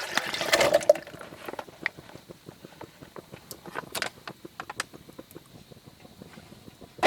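Liquid poured into a container for about the first second, with a short rising filling tone, followed by scattered small crackles and ticks and a sharp knock at the end.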